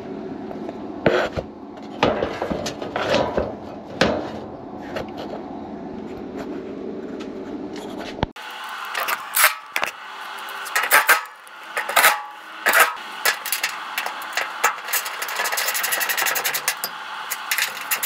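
York condenser fan motor running with a steady hum and irregular knocks and rattles, its mounting bolts loose. About eight seconds in, the running sound cuts off. After that a ratchet wrench clicks in quick runs, tightening the motor's mounting bolts.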